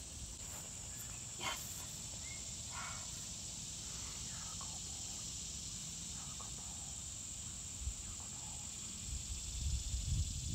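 Steady high-pitched insect chorus, such as crickets, with a few faint short chirps in the first half. Low rumbling noise rises near the end.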